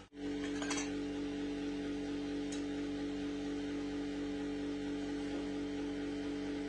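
A small electric motor running at a steady speed, giving a constant hum. There is a light clink just under a second in.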